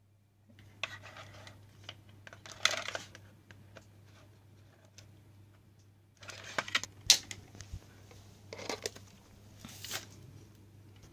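Handling noise of cables and plastic parts being moved by hand: scattered clicks, taps and short rustles, the sharpest click about seven seconds in, over a faint steady low hum.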